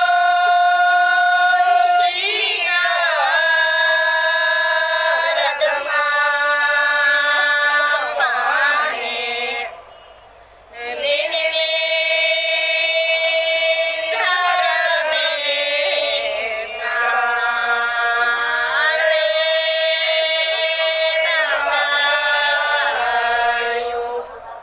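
A prayer chant is sung in long held notes that slide from pitch to pitch. It breaks off briefly about ten seconds in, then the sung phrase starts again.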